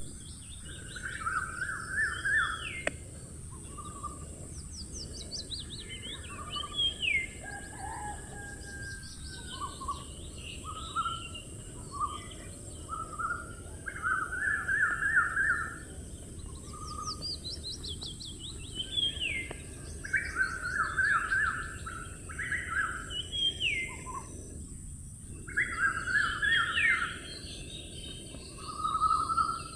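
Several songbirds singing together: short trilled phrases and quick descending runs of notes, repeating throughout, over a steady high hiss and a low background noise.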